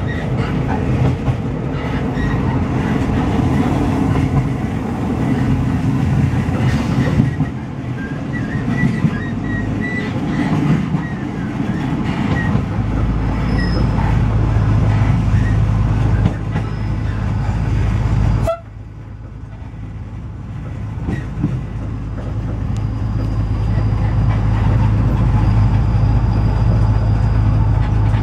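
Diesel train running along the track, heard from its front end: a continuous rumble of wheels on rail with some clickety-clack and brief faint wheel squeals. In the second half a steady low engine hum comes through; the noise drops suddenly about two-thirds of the way in and then builds back up.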